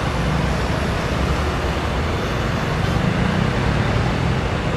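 Steady motorway traffic noise with a low rumble, swelling slightly about three seconds in.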